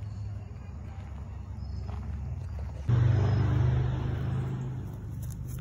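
Steady low hum of a running motor. It jumps suddenly louder about three seconds in, then eases off over the next two seconds.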